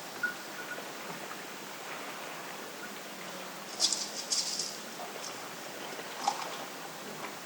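Night ambience in a steady wind: a constant hiss with a few short scratchy rattles and rustles, the loudest cluster about four seconds in and another just after six seconds.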